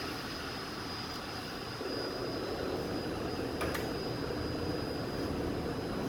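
Steady rush of air-handling machinery running, a little louder about two seconds in, with a thin high steady whine above it and a faint click near the middle.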